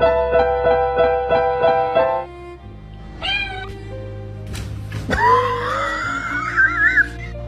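Music with a repeated note pattern, then a short animal cry about three seconds in and a long, high, drawn-out cry from about five seconds in that wavers near its end.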